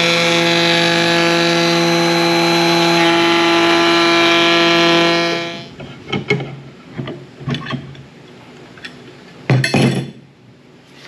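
Electric wood router running steadily at speed, then switched off about five seconds in. A few knocks and clunks of the tool and wood being handled follow, the loudest near the end.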